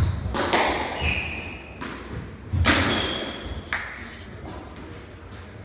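Squash rally: the ball cracking off rackets and the court walls in a quick run of sharp knocks that echo around the court, the loudest about two and a half seconds in, with a couple of short high squeaks between them. The knocks stop at about four seconds as the rally ends.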